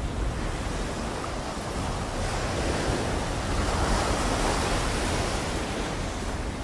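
Sea waves washing onto the shore in a steady hiss that swells a little midway and eases again near the end. Wind buffets the microphone with a low rumble.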